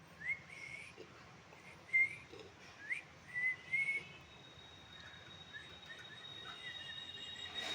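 A bird giving a series of short, rising whistled chirps, about six in the first half. From about halfway a steady, thin, high whine comes in under fainter chirps.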